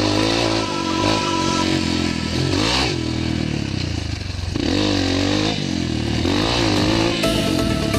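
Dirt bike engine running under changing throttle, its pitch rising and falling again and again as the rider opens and closes the throttle along the trail.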